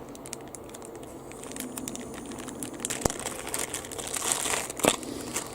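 Faint crinkling and rustling from small parts and wires being handled, with a few sharp little clicks, two clearest about three seconds and five seconds in.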